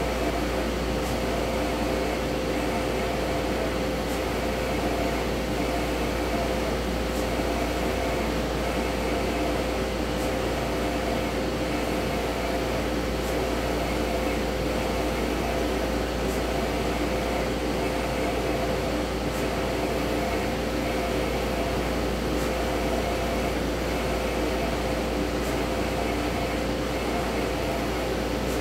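Océ Colorado 1650 wide-format UVgel roll printer running while it prints: a steady mechanical hum with a held tone, and faint ticks about every three seconds.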